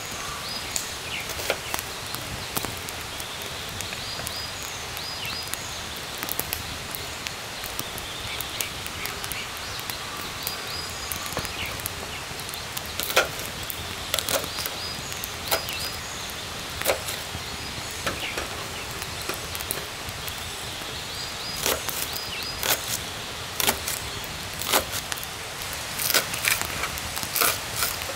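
Scattered sharp cracks and snaps of wood, more frequent near the end, over a steady forest background. A short high call repeats every several seconds.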